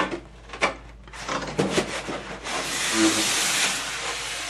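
Hair steamer's packaging handled on the floor: a couple of sharp knocks, then a long rustling rub of packing material being moved about, loudest past the middle.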